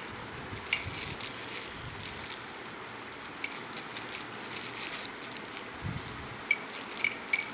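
Plastic wrapping of a mobile phone stand crinkling and rustling as it is handled and unpacked, with scattered crackles and a few sharper ones near the end.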